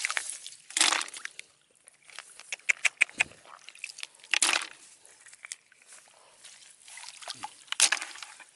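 Water sloshing and splashing in several short bursts, with small clicks and taps between them.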